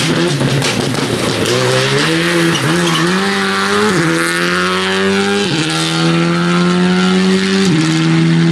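Škoda rally car's engine running hard at high revs as the car drives past. Its pitch changes abruptly at gear changes about four, five and a half and seven and a half seconds in.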